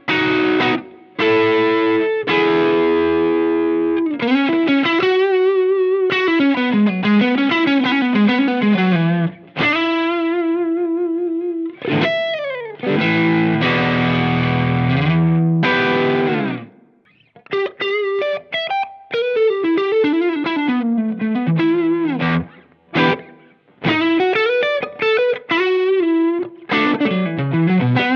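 Electric guitar played through a Cornerstone Antique Classic Drive V2 Tube Screamer-style overdrive pedal set for a TS10-like tone. Mildly distorted lead lines with string bends and vibrato, mixed with a few held chords, with short breaks about 17 and 23 seconds in.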